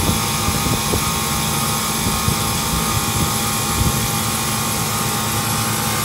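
A reach-in cooler's condensing unit running steadily, its condenser fan and compressor giving a constant hum. The compressor is running but not pulling the suction pressure down, which the technician takes for a likely bad compressor, perhaps with a bad suction valve.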